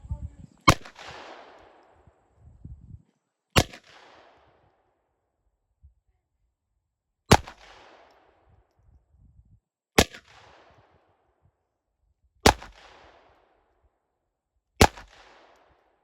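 Six single shots from a Glock 44 .22 LR pistol fired at a slow, steady pace, each a sharp crack followed by a short echo.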